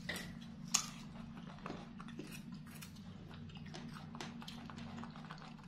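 Pet monkey chewing and biting into sweet peeled fruit: a run of small, irregular crunchy clicks, the sharpest about a second in, over a steady low hum.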